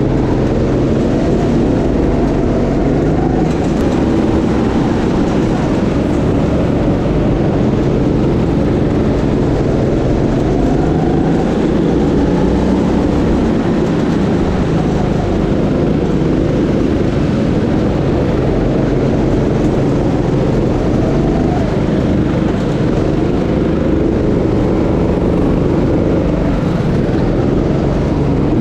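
A go-kart's engine running under the driver, its pitch rising and falling again and again as the kart speeds up down the straights and slows for the corners.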